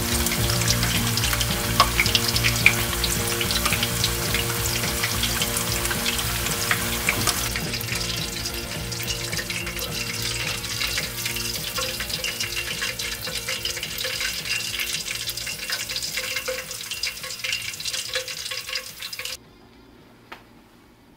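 Food sizzling in a frying pan, with scattered pops, over soft background music. The sizzle cuts off suddenly near the end.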